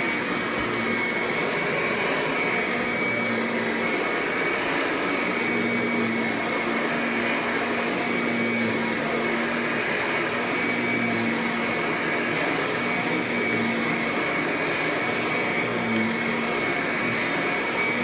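Kirby Ultimate G Diamond Edition upright vacuum running on its high motor speed, its brush roll agitating carpet. It gives a steady whine with a low hum that swells and fades every second or two.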